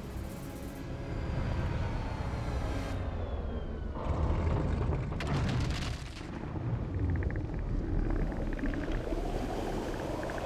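Dramatic cartoon sound effects: a continuous deep rumble of churning water, with a falling tone in the first few seconds and louder surges about four to six seconds in.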